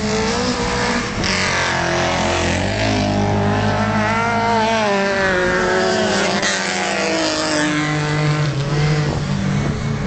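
Racing car engines revving hard, their pitch climbing and dropping with throttle and gear changes, more than one engine heard at once.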